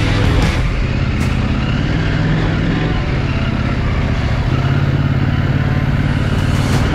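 KTM 890 Adventure R's parallel-twin engine running under way in second gear, with its low note growing stronger about four and a half seconds in.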